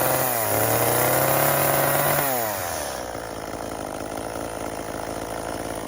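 Chainsaw running at cutting speed, its pitch dipping and recovering briefly, then falling back to idle about two seconds in and idling steadily.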